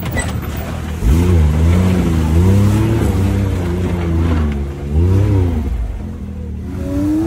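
Side-by-side UTV engine that is idling and then, about a second in, revs up and down repeatedly under throttle, easing back near the end.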